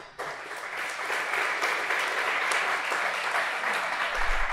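An audience applauding; the clapping starts suddenly and holds steady.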